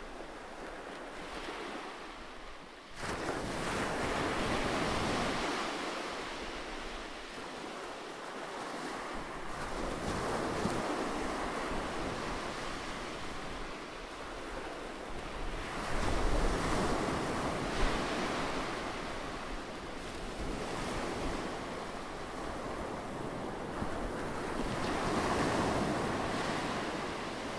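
Ocean surf: waves washing in and drawing back, the rush swelling and fading every several seconds.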